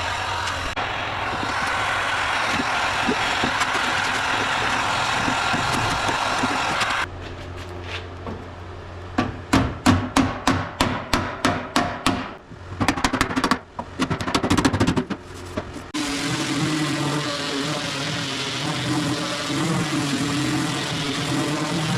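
A run of hammer blows, about fifteen sharp strikes in six seconds, between stretches of steady workshop machine noise.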